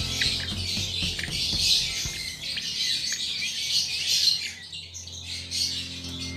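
Many birds chirping and squawking densely and continuously, with a low steady hum underneath.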